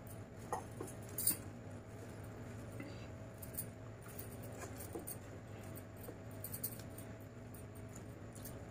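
Fingers mixing and squeezing rice on a steel plate: scattered small wet clicks and crackles of rice pressed against the metal, the sharpest about a second in, over a steady low hum.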